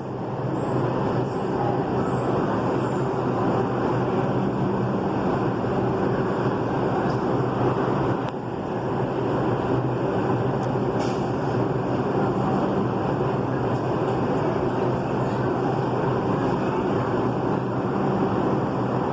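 New York City Subway 4 train running steadily, a constant rumble with a low hum. There is a brief click about eight seconds in.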